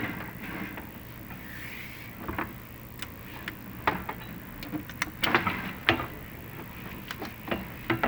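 Chimney inspection camera and its push rods knocking and scraping in a clay-tile flue: scattered sharp clicks and short scrapes over a steady low hum, bunched together in the middle.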